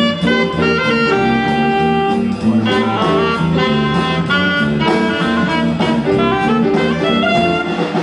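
Student jazz big band playing a swing chart: saxophones, trumpets and trombones over a rhythm section with electric bass, with an alto saxophone standing out front.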